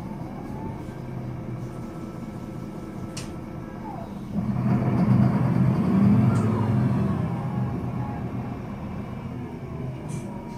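Solaris Urbino 12 III bus's DAF 9.2-litre horizontal inline-six turbo diesel idling, with a diesel clatter at low revs. About four seconds in it grows clearly louder for roughly three seconds, with a rising and falling whine, then settles back.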